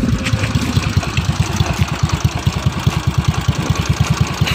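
Yamaha Mio Sporty's freshly refreshed single-cylinder four-stroke engine, bored to 59 mm with its valves ground and head ported, running. It settles in the first second into an even idle, with about ten exhaust pulses a second.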